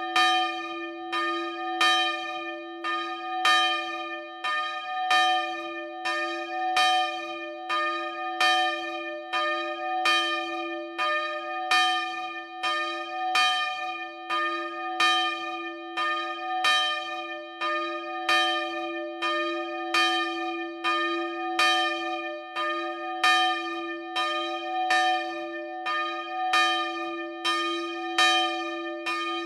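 A single bronze church bell swinging in its tower frame and ringing steadily, its clapper striking about twice a second, alternately louder and softer, with the bell's tone sounding on between strokes.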